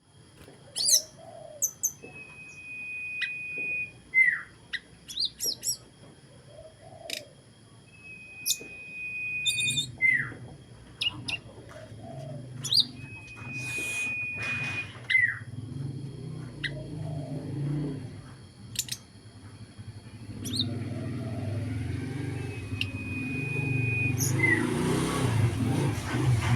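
A caged songbird practising its song, the 'sulgun' being trained to sing: four times it holds one steady whistled note for about a second, ending in a quick downward swoop, with short sharp chirps in between. A low rumble builds in the background toward the end.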